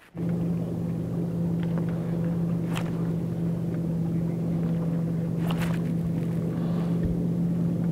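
Electric bow-mounted trolling motor humming steadily as it moves the bass boat slowly, with a few faint clicks from rod or reel handling.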